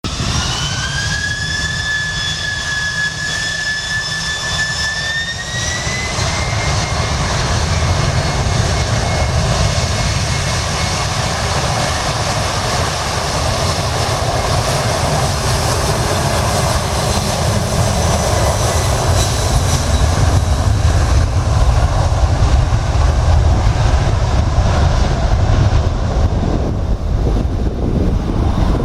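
Boeing 747 jet engines at takeoff power: a high whine that rises in pitch about five seconds in and then holds steady, over a deep rumble that grows louder.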